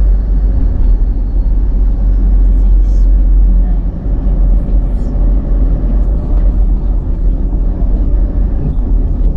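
A car driving, heard from inside the cabin: a steady, loud low rumble of road and engine noise.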